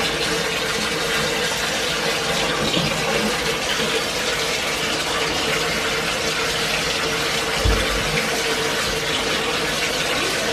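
Tap water running steadily into a bathtub as it fills, with one dull low bump about three quarters of the way through.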